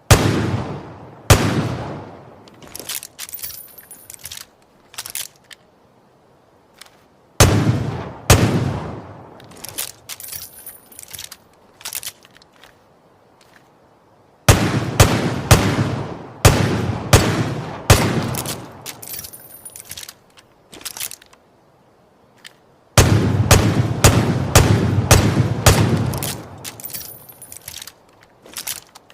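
Smith & Wesson Model 29 .44 Magnum revolver shots with a ringing tail: two single shots, two more about seven seconds in, then rapid strings of shots about halfway through and again near the end. Between the groups there are sharp metallic clicks from the revolver.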